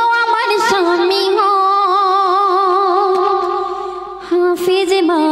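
A girl singing a Bengali devotional song into a microphone: a long held note with vibrato that fades away about four seconds in, then a new phrase begins.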